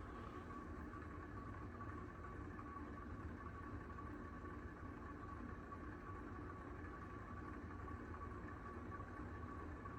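Heritage Alexis hugger ceiling fan running steadily on high, a faint even hum with a thin steady whine over it. Part of the noise is from its worn motor bearings, which the owner says need replacing.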